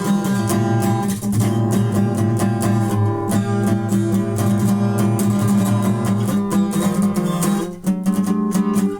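Guitar strummed continuously, full chords ringing over each other, with a brief drop in loudness about three-quarters of the way through.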